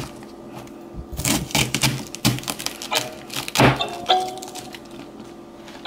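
Kitchen knife cutting through a cabbage wedge and knocking on a cutting board: a run of quick crunching cuts, then one heavier thunk about three and a half seconds in.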